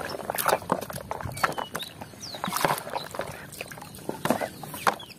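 Muddy water sloshing and splashing in a plastic tub as a toy truck is pushed and rubbed through it by hand, in irregular splashes.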